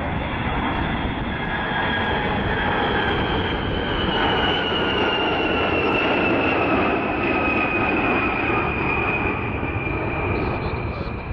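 Boeing B-52H Stratofortress's eight TF33 turbofans running at go-around power, a steady jet noise with a high whine that slowly falls in pitch. It grows louder toward the middle and eases slightly near the end as the bomber passes and climbs away.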